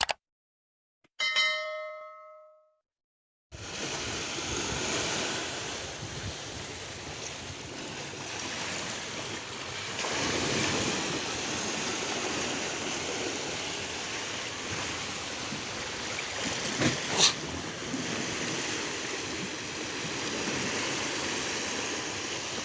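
A short ringing chime about a second in, then from about three and a half seconds a steady rush of sea waves and wind breaking against a ferry at sea, with a sudden louder hit about seventeen seconds in.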